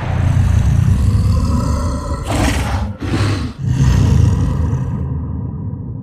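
Giant ape monster's roar, a film sound effect: a deep, low growl that swells into two louder roars about two and a half and three seconds in, then fades out near the end.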